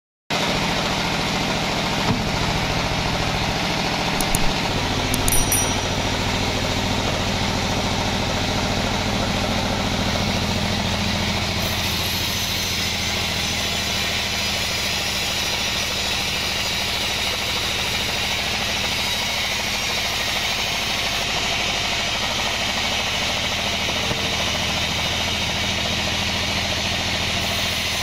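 Horizontal band sawmill running steadily, its blade sawing lengthwise through a kenanga log. A few sharp knocks come in the first six seconds.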